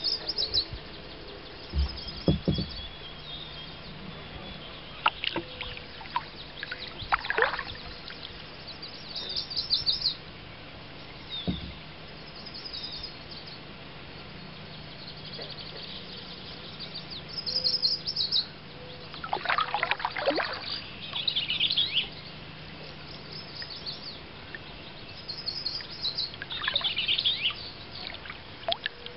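Songbirds chirping and trilling on and off, many short high notes. Now and then come the splashes and drips of a kayak paddle stroke, and twice a low knock.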